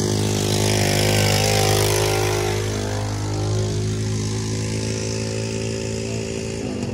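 An engine running steadily at one pitch, a low drone with many overtones that eases off slightly near the end.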